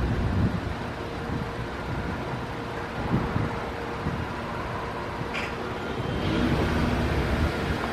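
Low road-traffic rumble of vehicles at the railroad crossing, with a faint steady ringing tone above it and a brief sharp sound about five and a half seconds in; the noise grows a little louder near the end.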